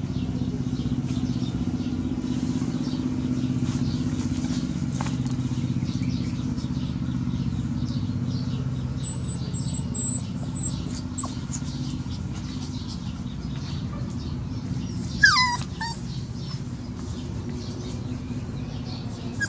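Puppy chewing and tugging at a cloth, with faint rustling and mouthing sounds, and a short high whimper about fifteen seconds in. A steady low hum runs underneath.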